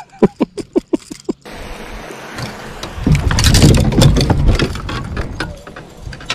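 A person falling in a small fishing boat: a dense, loud clatter of body and fishing rods hitting the boat about three seconds in, thinning out over the next two seconds. Before it comes a quick run of short knocks.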